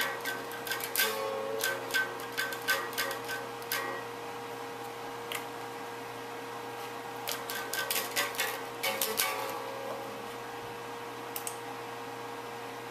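Irregular runs of clicks from typing on a computer keyboard, in two spells, over a steady low electrical hum.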